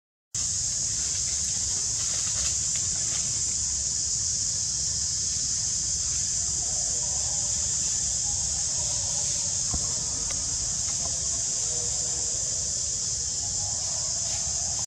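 Steady, high-pitched drone of a forest insect chorus, with a low rumble underneath.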